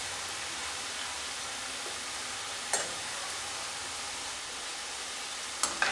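Hot oil sizzling steadily as pieces of banana and rice-flour dough deep-fry. Two light clicks of a metal spoon against the pan, about three seconds apart.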